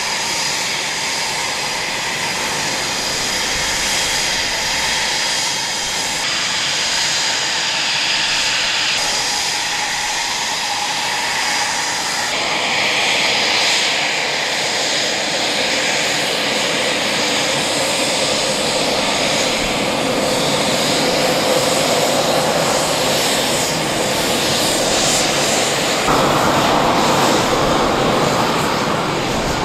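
Eurofighter Typhoon jet engines running at taxi power: a steady, loud jet rush with a high whine. It grows louder in the last few seconds.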